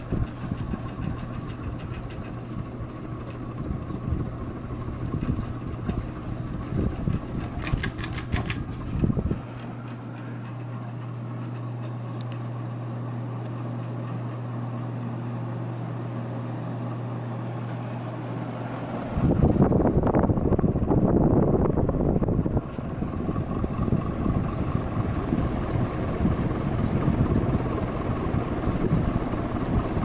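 View Fan ceiling fan running, its motor giving a steady hum. Air thrown off the spinning blades rumbles on the microphone for about the first nine seconds and again, louder, from about nineteen seconds in, with only the hum heard in between.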